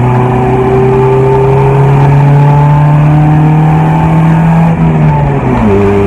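Honda Civic's D15B four-cylinder engine pulling under way, heard from inside the cabin: the engine note climbs slowly and steadily, then the revs fall to a lower steady pitch near the end.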